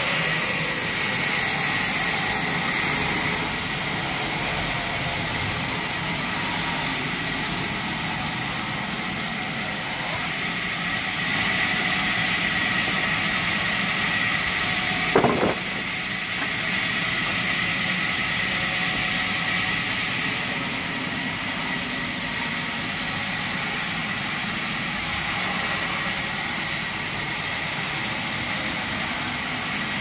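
Sawmill band saw running steadily, its blade ripping a shisham log into planks, with a continuous high hiss and whine. A single short knock about halfway through.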